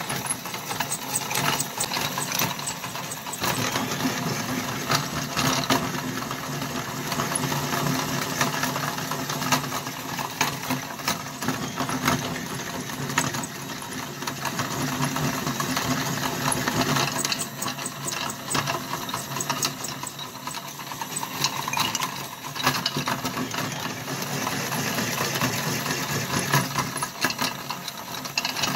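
Electric meat grinder running steadily, its motor humming while the auger crushes crumbly coloured material, with many scattered crunching clicks.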